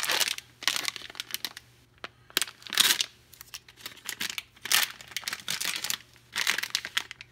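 A crinkly blind-box wrapper bag being pulled and torn open by hand, crackling and rustling in about five short bursts with pauses between.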